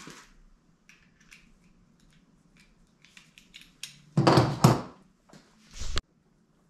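Hand tools and small parts being handled on a work table: scattered light clicks and taps, then a loud metallic clatter about four seconds in as a wrench is set down, and a short heavy thump near six seconds.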